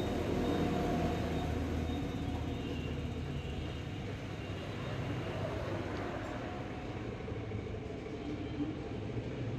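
Steady low rumble and hum of background machinery or traffic, unchanging throughout.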